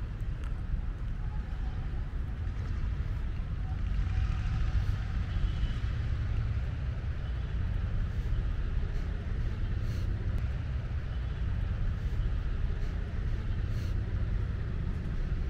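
Steady low rumble of outdoor ambience, with a few faint clicks.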